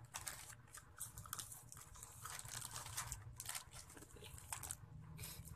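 Small plastic candy wrapper crinkling as it is handled: irregular light crackles, with some chewing of the candy.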